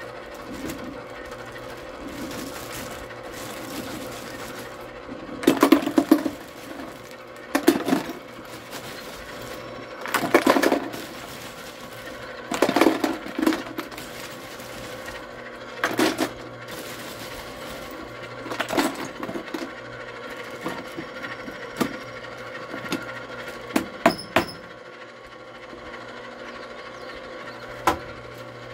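Electric ice cream maker's motor running with a steady hum while ice cubes are poured from a bag into the bucket around the canister, clattering down in short bursts every two to three seconds.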